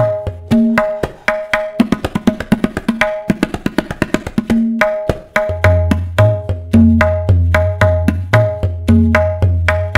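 Tabla playing a Delhi kayada in teentaal: rapid, crisp strokes on the right-hand dayan, ringing at its tuned pitch, with the left-hand bayan's deep bass. The bass drops out for roughly the first half, where the strokes run fastest, and returns about halfway through, as in the closed (khali) half of a kayada theme.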